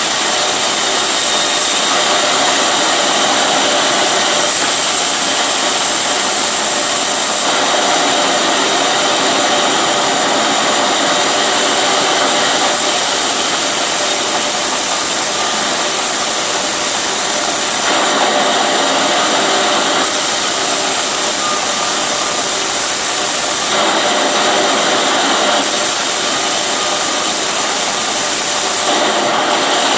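Engine-driven band saw running and cutting wood, a steady loud whine whose level shifts every few seconds as the cut goes on.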